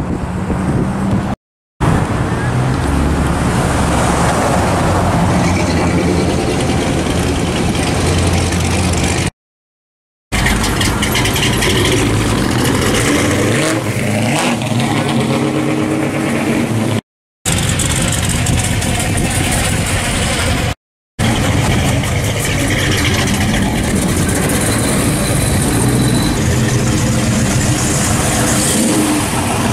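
Classic American V8 muscle cars, among them a Pontiac GTO and a Chevelle, driving past one at a time, their engines running and revving as they pull away. The sound is cut into several short clips, with brief silences between them about 1.5, 10, 17 and 21 seconds in.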